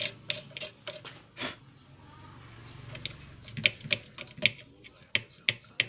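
Irregular sharp clicks and taps of hands and a tool handling the wires and parts of a CRT TV chassis around the flyback transformer, a few at the start, a pause, then a quicker run of clicks.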